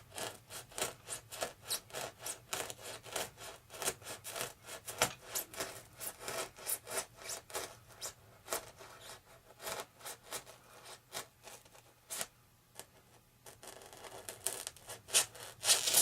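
X-Acto hobby knife being sawn back and forth through a foam RC airplane wing, cut down to the base of the blade: a steady run of short rasping strokes, about two or three a second, that thins out for a couple of seconds about three-quarters through before picking up again.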